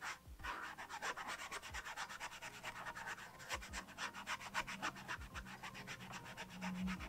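Soft, scratchy rubbing of a wet paintbrush scrubbing quickly back and forth over watercolour paper, many short strokes a second.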